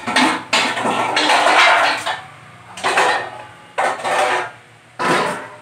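Metal kitchen utensils scraping and clattering in about five separate bursts, the second one lasting about a second and a half.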